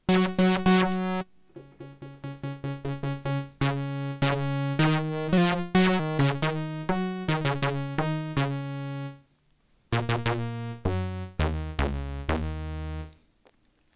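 Nunomo Qun mk2 synthesizer playing a run of short pitched notes from a sine and saw oscillator pair fed through its wavefolder. The tone turns much brighter a few seconds in as the VCF volume is raised and the wavefolder adds harmonics. The notes break off briefly near the end, then resume at a lower pitch.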